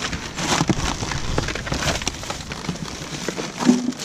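Plastic trash — bags, lids and packaging — rustling and crackling as hands dig through a dumpster, with a brief pitched sound near the end.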